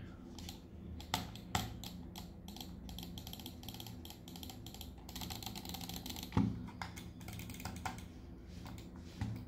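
Buttons of a gaming mouse being clicked: short, irregular plastic clicks, several a second, in runs, with a duller knock about six seconds in.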